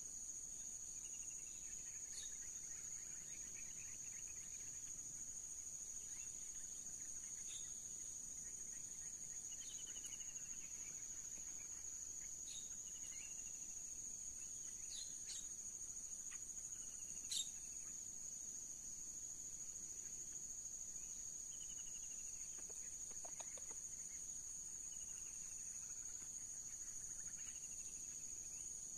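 Steady high-pitched drone of tropical insects, with faint descending bird calls repeating every few seconds. About two-thirds of the way through comes a brief run of low clucks from a red junglefowl rooster. A single sharp click sounds a little past the middle.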